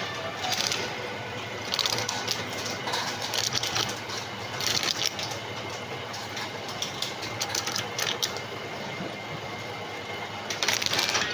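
Motorized coconut peeling machine running with a rattling mechanical clatter, with repeated louder bursts every second or two.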